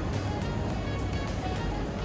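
Background music with a steady, regular beat.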